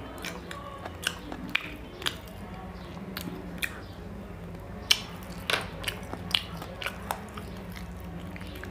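Wet chewing and lip smacking of a man eating curry-soaked luchi with his fingers. Irregular sharp smacks come every half second or so, the loudest about five seconds in.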